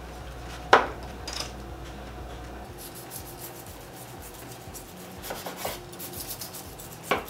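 A knife sawing through the crisp breaded crust of a stuffed chicken roll on a wooden cutting board, with a scratchy crunching and sharp knocks of the knife and metal tongs on the board: one about a second in and a few more near the end.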